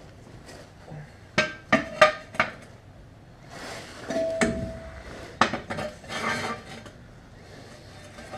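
Steel jack stand being set and adjusted under a car's rear axle: a series of sharp metal clanks, a scrape with a brief ringing clang about four seconds in, then a few more clanks.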